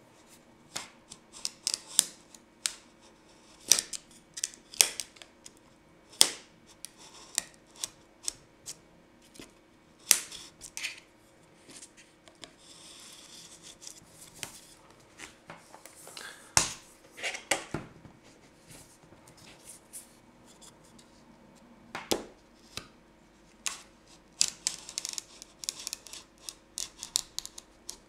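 Fingers and a small blade scratching and picking at the edges of a cardboard box to slit its clear tape seals: irregular sharp ticks and scrapes, with a softer stretch of steady rubbing about halfway through.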